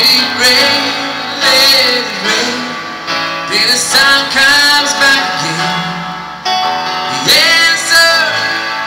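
Live music: a man singing a slow pop song into a microphone, accompanied on an electronic keyboard.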